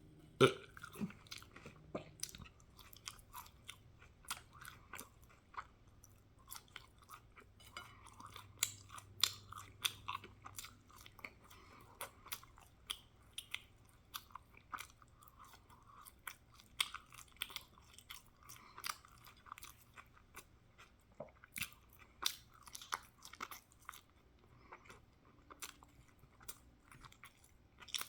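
A person chewing and crunching food: irregular crisp crunches and wet mouth smacks, several a second.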